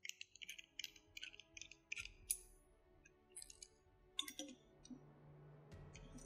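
Faint, rapid clicking of a torque wrench's ratchet as the locking nut on the grinding-stone adjuster of a Jaguar 800 sharpening system is tightened to 170 N·m, followed a couple of seconds later by a few light metal clinks as the tool is lifted off.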